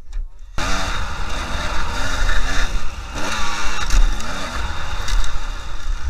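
Dirt bike engine heard from on the bike, starting abruptly about half a second in and revving up and falling back repeatedly as the throttle is opened and closed.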